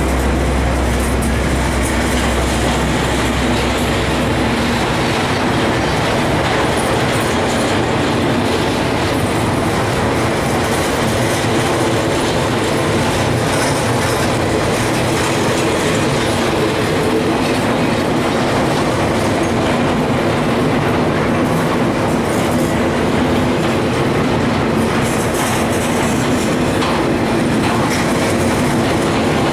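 Empty intermodal freight cars (trailer flatcars and articulated spine cars) rolling steadily past close by: a continuous loud rumble of steel wheels on rail with a rhythmic clickety-clack as the trucks cross rail joints.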